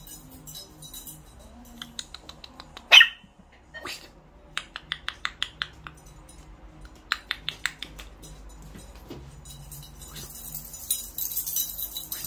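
A puppy gives one short, loud bark about three seconds in. Runs of quick clicks follow, and near the end comes a brief rustling clatter.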